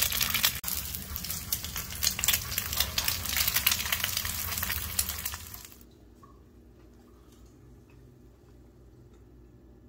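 Eggs frying in hot fat on a flat-top griddle, a dense crackling sizzle. It cuts off suddenly about six seconds in, leaving only a faint low hum.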